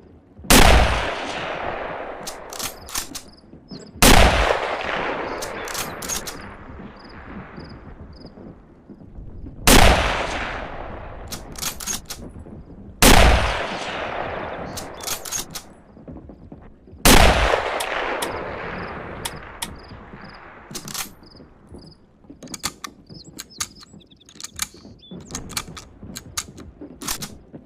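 Mosin-Nagant 1891/30 bolt-action rifle in 7.62×54mmR firing five shots several seconds apart, each with a long rolling echo and a few sharp metallic clicks of the bolt being worked afterwards. Near the end a run of loose clicks and rattles follows with no more shots.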